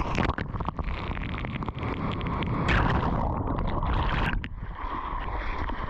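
Rushing, splashing seawater with wind buffeting the microphone, surging louder about three seconds in.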